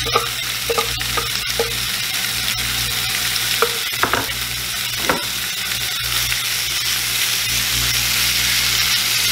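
Raw chicken chunks sizzling loudly in a hot nonstick skillet greased with cooking spray, a steady frying hiss. A few short clicks and knocks of a knife and utensil against the pan come in the first half.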